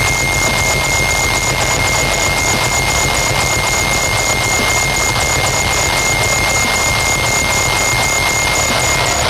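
Loud electronic noise music: a steady, dense wall of noise with one held high tone and a faint regular ticking high up, about three ticks a second.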